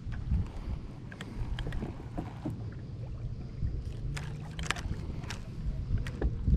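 Wind buffeting the microphone and choppy water lapping against a small boat's hull, with scattered light knocks and clicks.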